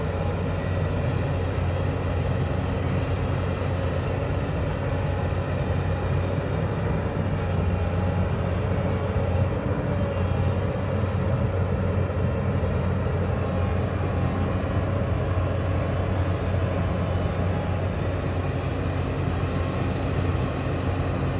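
Diesel engine of a Hyundai crawler excavator running steadily while the machine digs and swings its boom.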